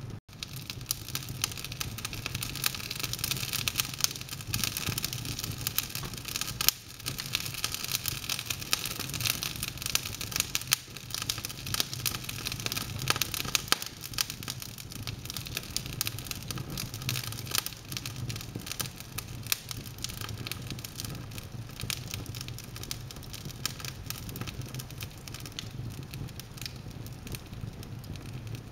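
Wood fire burning in an open fireplace: logs crackling and popping, many sharp snaps over a steady hiss, with a low steady hum underneath.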